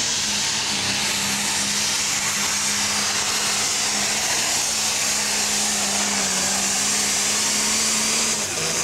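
A pro stock pulling tractor's turbocharged diesel engine running flat out under full load, pulling the sled. It gives a strong high hiss over a steady engine note. Near the end the engine note drops as the pull ends.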